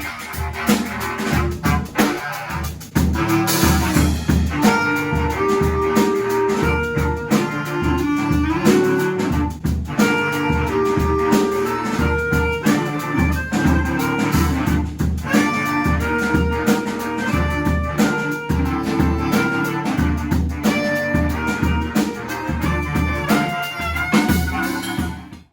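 Music: wind instruments playing held melody notes over a drum kit, loud throughout, cutting off abruptly at the end.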